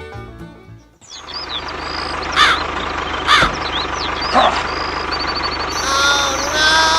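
Background music fades out about a second in. Bird calls follow: quick chirps and several loud falling calls over a steady low hum.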